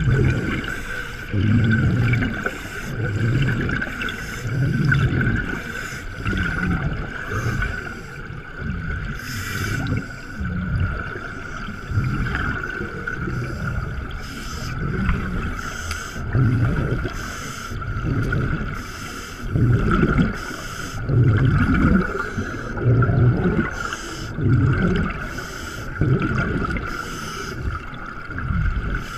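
Scuba diver breathing through a regulator underwater: the low, gurgling rumble of exhaled bubbles comes in repeated pulses every second or two, with short hissy inhalations between them. A steady high tone runs underneath.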